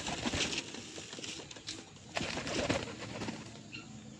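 Flock of domestic pigeons cooing as they feed, with scattered short clicks and rustles among them.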